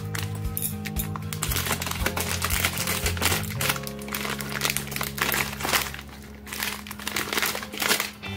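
Foil candy wrapper crinkling as it is cut open with scissors and peeled back by hand, over background music.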